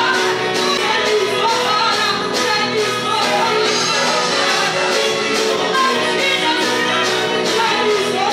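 Music with a steady beat and singing voices.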